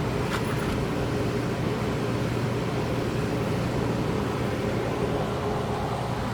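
Steady background drone of a running motor or engine, with a low hum that does not change, and one faint tick just after the start.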